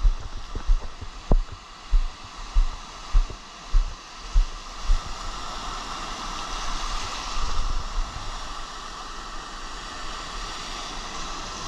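Footsteps thudding on wet sand at a steady walking pace, about one and a half a second, for the first five seconds; then the steady hiss of shallow surf foam washing around the feet, swelling a little in the middle.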